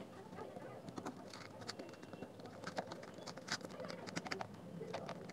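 Faint, irregular clicks and scrapes of a thin metal pry blade working a glued speaker grille off a plastic housing, the adhesive giving way bit by bit.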